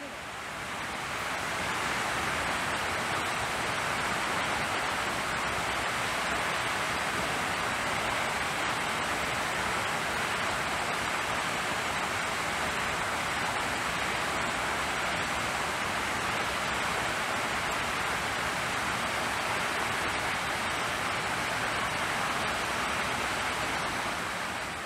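Steady, even rushing noise like flowing water or hiss, fading in over the first second or two and fading out near the end.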